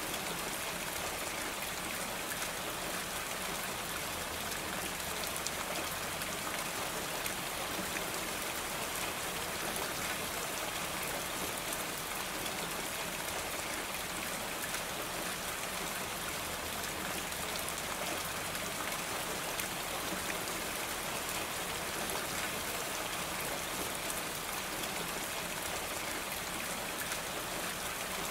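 Steady rain falling on a roof, an even wash of many small drop hits.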